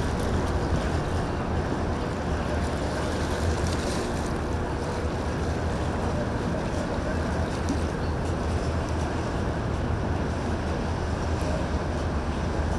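Motorboat engines running with a steady low hum, over water wash and wind noise on the microphone.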